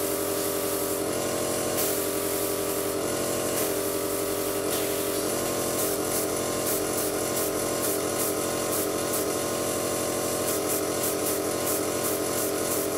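Small airbrush compressor running with a steady hum, under the hiss of an airbrush spraying paint, with a run of light clicks in the second half.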